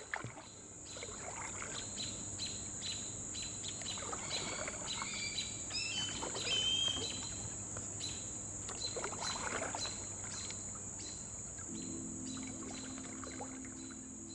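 Kayak paddle strokes in calm river water, with a bird singing a short warbling song about five seconds in. Low, steady music tones come in near the end.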